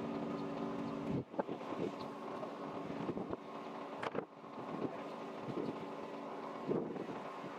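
Steady motor hum with wind on the microphone, broken by a few short knocks, the sharpest about four seconds in.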